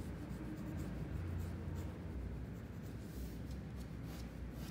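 Pencil scratching on paper in a run of quick, short strokes, sketching fine strands of hair, over a steady low hum.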